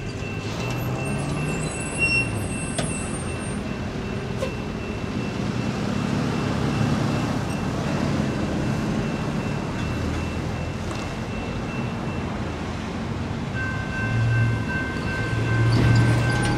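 Road traffic passing over a railroad crossing, with a pickup truck's engine rising near the end. About three seconds before the end, the crossing's electronic bells start ringing as the signals activate for an approaching train.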